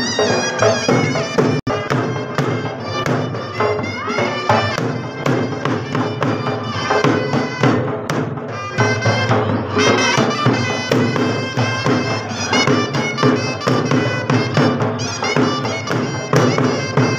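Traditional festive music: a sustained wind-instrument melody over steady drum beats. The sound cuts out for an instant about a second and a half in.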